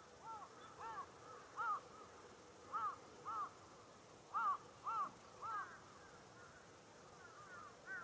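Carrion crows cawing: a string of about eight short, arched caws, several coming in quick pairs, with fainter calls near the end.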